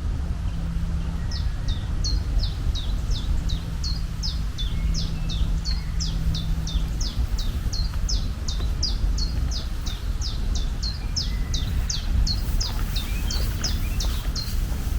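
A bird calling in a long run of short, falling chirps, about three a second, over a steady low rumble of outdoor ambience.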